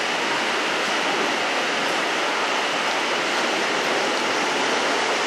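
Steady, even rushing noise of a passing train, without wheel clicks or engine note.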